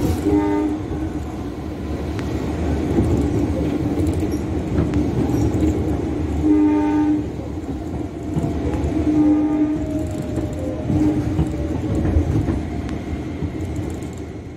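Train horn sounding four short blasts, the second, about six and a half seconds in, the longest, over the steady rumble and rattle of a moving train.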